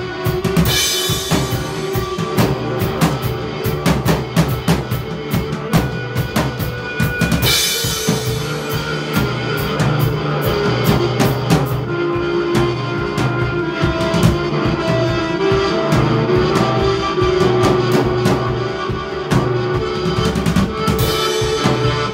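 Drum kit played steadily with kick, snare and cymbals, with crash cymbal hits about half a second in, about seven seconds in and near the end, over sustained electric guitar notes.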